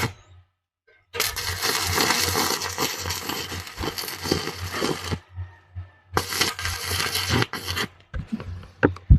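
Stick-welding arc from a 1/8" 6013 electrode crackling steadily on thin steel tubing, in two runs: about four seconds starting a second in, then about two seconds starting around six seconds. A few sharp clicks follow near the end. The electrode runs hot enough to burn holes through the thin tube.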